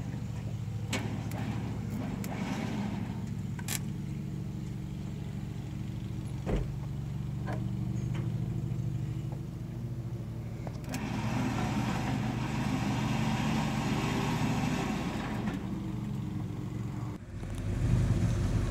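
Pickup truck engine idling steadily, with a few sharp metal clinks and one knock as a tow line is hooked to the front of a truck. Near the end it cuts to a louder, fuller engine hum.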